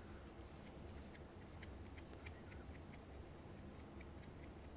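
Near silence: faint room tone with a low hum and scattered light clicks at an uneven pace.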